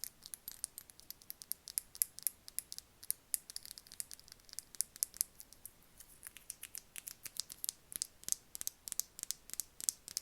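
Close-up ASMR tapping: rapid, crisp, irregular taps and clicks, several a second, with no pauses.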